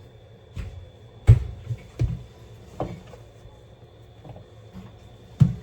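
Five irregular knocks and thumps in a small room, the loudest about a second in and again near the end, over a faint steady high-pitched tone.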